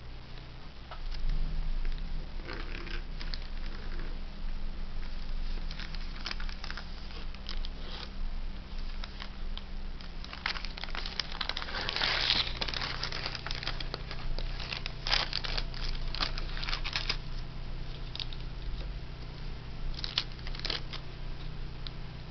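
Sheet of thin tracing paper rustling and crinkling as it is handled and smoothed by hand, in irregular crackles that are densest about halfway through, over a low steady hum.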